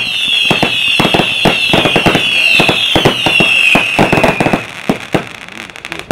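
Jorge 'Bam' Category 2 fireworks battery firing a rapid run of shots and bursting stars, over a high whistling tone that slowly falls in pitch and fades out after about four and a half seconds. The shots thin out about five seconds in, and the barrage ends with a last bang near the end.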